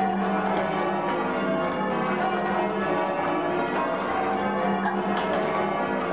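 The church's restored ring of bells being rung by rope from the ringing chamber below. Strike follows strike without a break, the notes overlapping into a continuous ringing.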